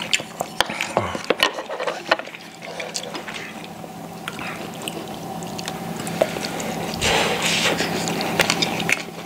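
Eating sounds: wet chewing and slurping, with chopsticks and spoons clicking against bowls and dishes. The chewing and slurping grow louder about seven seconds in.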